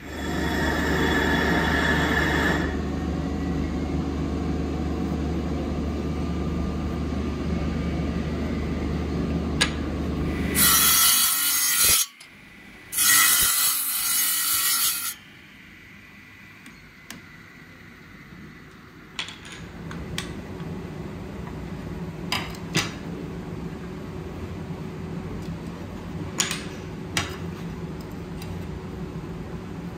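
Workshop power tool at work: it runs steadily with a low hum for about eleven seconds, then gives two loud, harsh bursts of a couple of seconds each. After that comes a quieter steady sound with scattered sharp clicks.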